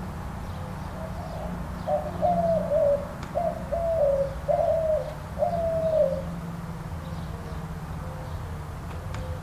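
White-winged dove cooing: a run of about five hooting coos over some four seconds, each note falling in pitch at its end. A low steady hum sits underneath.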